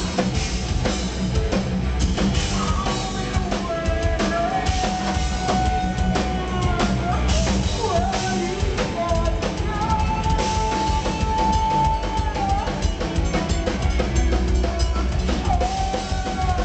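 Live metal band playing loud: pounding drums with distorted guitar and bass, and a woman's voice singing long held notes over it, twice.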